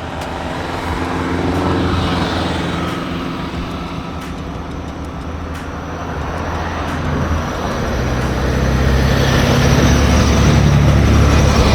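Road traffic: motor vehicle engines passing, with one swell about two seconds in and a louder, longer pass building from about eight seconds in.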